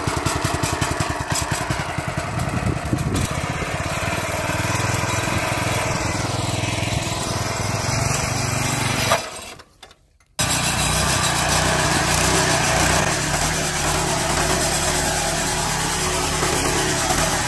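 Kawasaki VMTB70 walk-behind flail mower, its 7 hp four-stroke engine running steadily under load as the flail shaft chops through weeds. About halfway through, the sound drops out for about a second, then the engine comes back at the same level.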